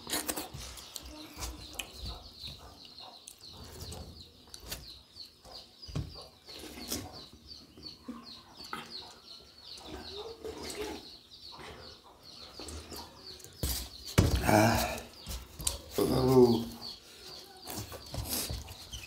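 Eating sounds: hands squelching and scooping soft, watery rice on steel plates, with chewing and small clicks. About ten seconds in comes slurping of the rice water from the plates. Two louder sounds follow near the end.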